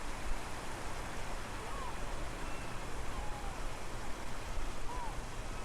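Sea surf washing steadily onto the shore. A few faint, short chirps rise and fall in pitch over it.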